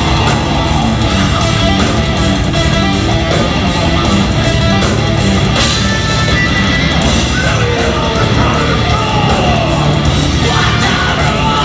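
Live progressive metal band playing loud: distorted electric guitars, bass and a steady drum beat, with vocals coming in during the second half.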